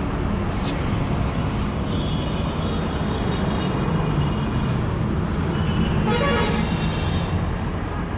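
Roadside traffic with a steady engine rumble, and vehicle horns tooting around two seconds in and again around six seconds in.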